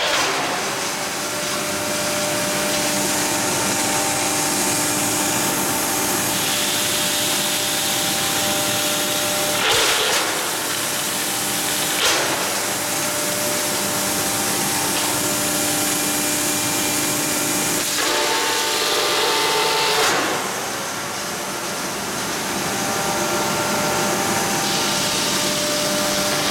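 PVC crusher (hammer mill) running steadily as it grinds PVC sheet offcuts, a constant hum and hiss with a few steady tones. There are brief louder bursts about ten and twelve seconds in and again about twenty seconds in.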